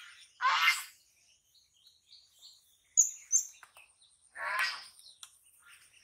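Fish thrashing in a tub of water, with two short splashes about four seconds apart. Small birds chirp sharply in between.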